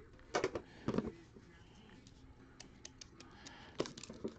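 Handling knocks and clicks as a cardboard trading-card box is lifted out of a metal tin and the tin is closed, with two sharper knocks about half a second and a second in. Light ticks follow as a small tool is set against the box to open it.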